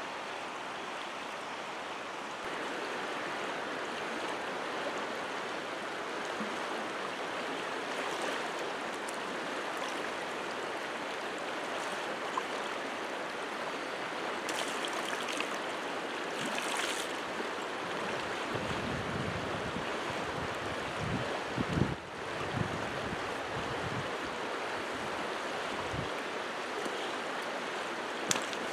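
Shallow creek riffle flowing steadily over stones: a continuous rushing of water. Low rumbling thumps come and go in the second half.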